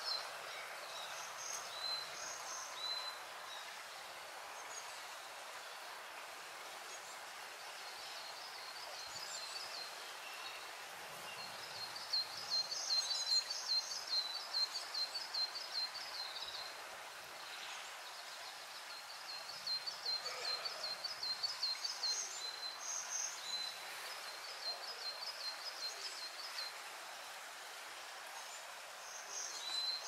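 A small stream trickles steadily over rocks. Above it a small songbird sings fast trills of repeated high notes in several phrases, loudest between about 12 and 16 seconds and again around 20 to 23 seconds, with a few single call notes near the start and end.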